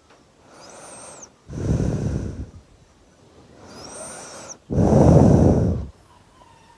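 A sleeping child breathing slowly and heavily through the nose, right at the microphone: two breaths, each a quieter inhale with a faint high whistle, then a loud exhale about a second long.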